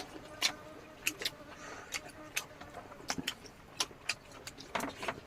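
Eating sounds: an irregular string of short soft clicks and smacks, a few every second.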